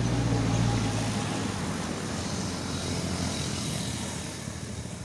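A motor engine's steady hum passing by: loudest in the first second, then slowly fading.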